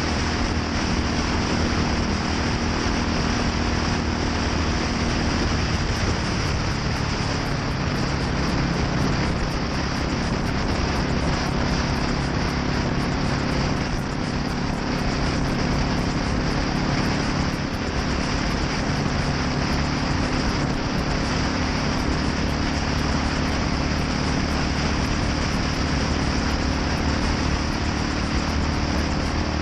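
A Yamaha SR400's single-cylinder four-stroke engine running through a NitroHeads aftermarket muffler, a steady exhaust note whose engine speed shifts slightly now and then.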